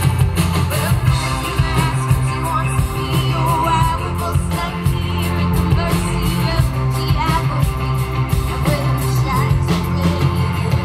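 A live band playing a song, with a woman singing over guitar and a steady beat.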